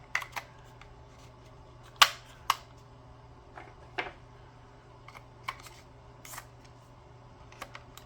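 Sharp clicks and taps of plastic and AA batteries being handled in an RC transmitter's battery compartment, about eight scattered clicks, the loudest about two seconds in.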